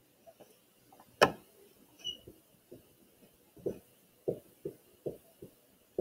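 Writing by hand on a board: short, irregular strokes a few tenths of a second apart, with one sharp click about a second in.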